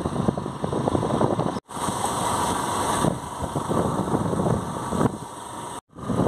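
Motorcycle running as it is ridden along a road, with road and wind noise. The sound drops out briefly twice.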